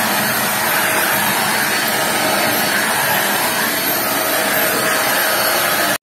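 Deerma DX118C corded stick vacuum cleaner running steadily: a loud rush of air with a high motor whine, cutting off suddenly at the end.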